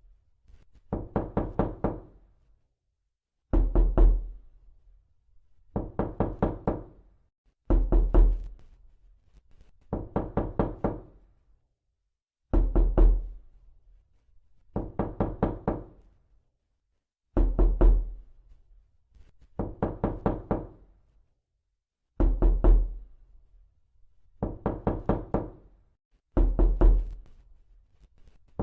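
Repeated knocking in a steady pattern: a loud group of three or four heavy knocks, then a softer, quicker run of about five knocks, over and over, about every five seconds.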